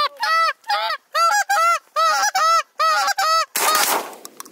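A rapid string of Canada goose honks and clucks, about three a second, each note a short arched yelp. About three and a half seconds in, the honking gives way to a loud shotgun blast.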